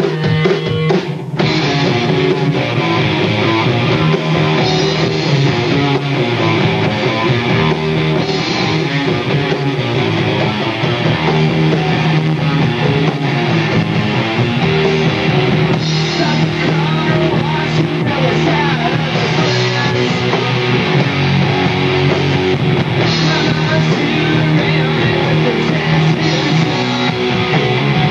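Rock band playing live: electric guitars, electric bass and drum kit, with the full band coming in about a second in and then playing on steadily.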